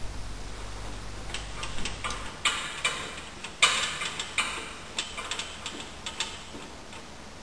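Irregular metallic clicks and a couple of short scraping rasps as a steel engine and gearbox support bar is worked by hand at its adjuster.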